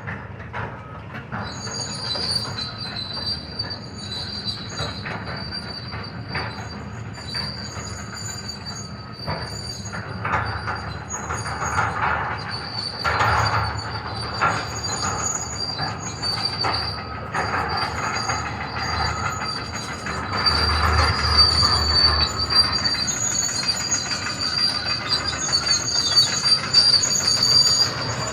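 Heavy demolition machinery tearing down a building: a steady high metallic squeal over continuous crunching and clattering of debris. Heavier crashes come about 13 seconds in and again from about 20 seconds, when it gets louder.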